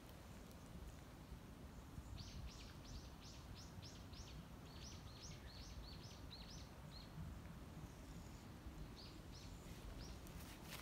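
A bird calling a quick series of short, high, falling notes, about three a second for some five seconds, then a few more near the end, over faint outdoor background noise.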